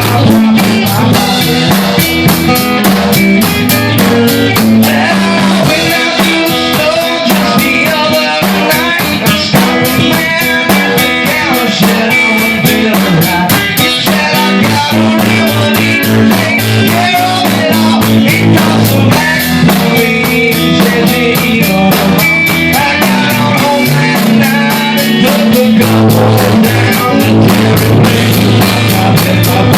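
A band playing a blues-rock instrumental passage on guitar and drum kit, with a steady, driving beat.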